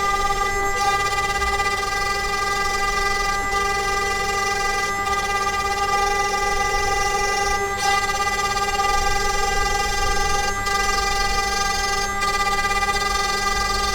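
DIY CNC router spindle whining at a steady pitch while a single-flute end mill cuts plywood, the cutting noise dipping briefly every couple of seconds as the toolpath changes direction.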